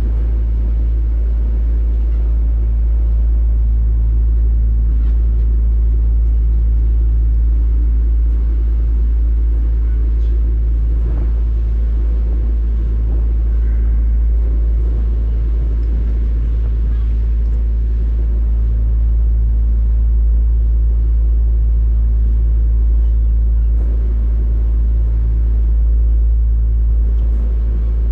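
A boat's engine running steadily: an even, unbroken low rumble with a steady hum.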